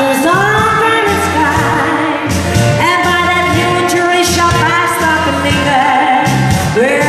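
A woman singing a pop song live into a microphone over backing music with a steady bass beat, several of her notes sliding up into long held tones.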